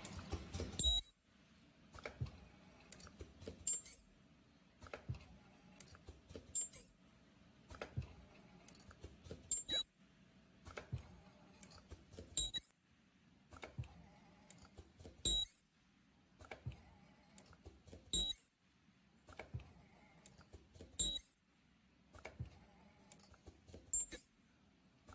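YFM-128ICA automatic ultrasonic zipper bottom-stop welding machine cycling on its own. A brief, loud, high-pitched burst comes about every three seconds, nine times, with light mechanical clicks in between as each zipper is fed and welded.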